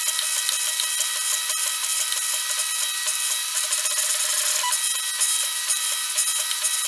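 3D printer running a print: a steady, high whirring and rasping from its moving print head and motors.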